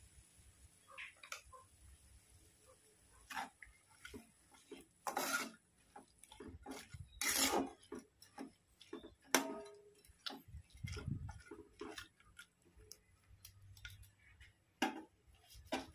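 Metal spatula scraping and knocking against a metal kadhai as a wet ridge gourd curry is stirred: irregular scrapes and clicks, with two longer scrapes about five and seven seconds in.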